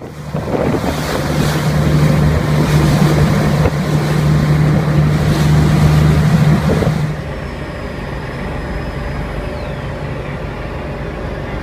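Fishing boat's engine running under way: a loud, steady low drone over rushing water and wind. About seven seconds in it drops abruptly to a quieter steady rumble.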